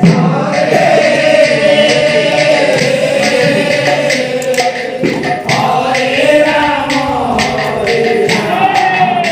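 A group of men chanting a devotional naam sankirtan together, with small percussion clicking a steady beat under the voices.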